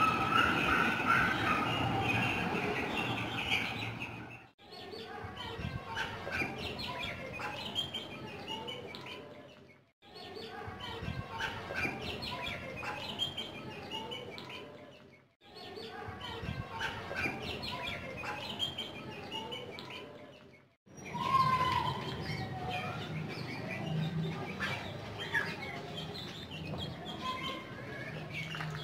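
Chicks and ducklings peeping, with many short chirps overlapping. The sound drops out briefly about every five or six seconds.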